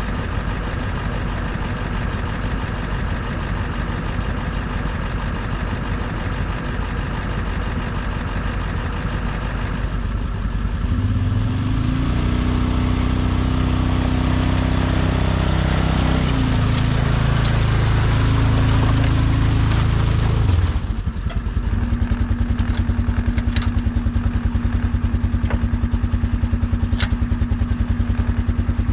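A machine's engine running: steady at first, then louder, with its pitch stepping up and down as it works for about ten seconds. It then changes abruptly to an even, pulsing run with a few sharp clanks.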